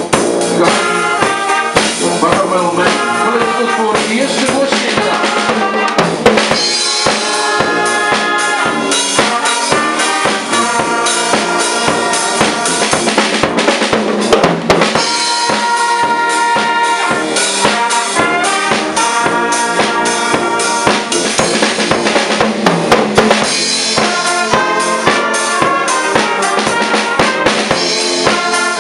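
Two combined brass bands playing an upbeat number: trumpets and other brass over drum kit, snare and bass drum keeping a steady beat.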